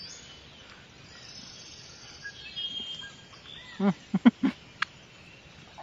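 Quiet outdoor background of insects and birds. About four seconds in there are a few short hums from a man chewing soft fruit.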